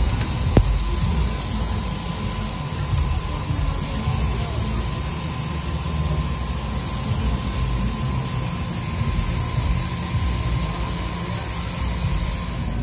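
Pantograph engraving machine's cutter spindle running steadily with a high whine over a low hum as it cuts letters into a black two-ply engraving plate. One sharp click about half a second in.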